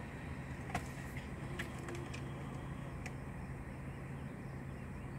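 Car engine idling, heard from inside the cabin as a steady low hum, with a few faint scattered clicks in the first three seconds.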